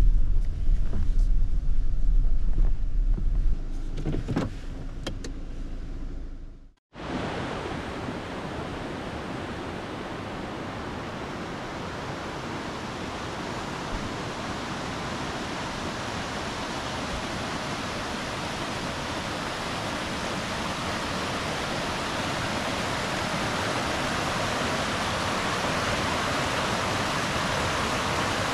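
A low rumble that fades over the first few seconds and cuts off about seven seconds in, followed by the steady rushing of a mountain stream, slowly growing louder.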